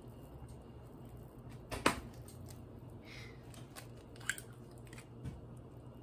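Saucepan of water bubbling softly on a gas stove, a faint crackle over a low steady hum. A sharp knock about two seconds in, and lighter clicks later as the pot is handled.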